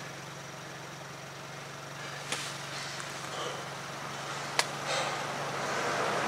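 Two light, sharp metal clicks about two seconds apart from a two-foot breaker bar and 35 mm socket being set on a truck's front axle nut, over a steady low hum.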